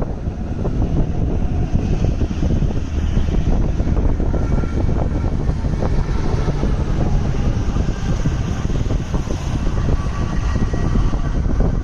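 Tornado winds making a loud, steady low rumble with no break.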